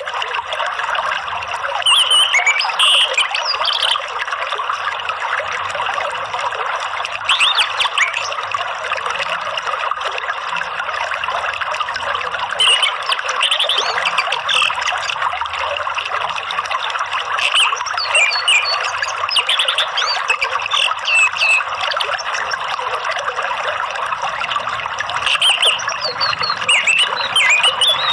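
Steady running water, like a trickling stream or small cascade, with short high bird chirps and twitters breaking in over it every few seconds.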